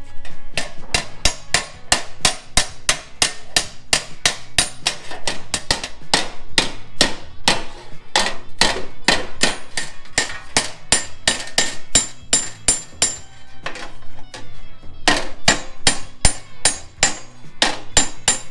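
Hammer striking sheet steel in quick, even blows, about three a second, forming a patch panel for a rust repair. The hammering stops briefly about thirteen seconds in, then resumes.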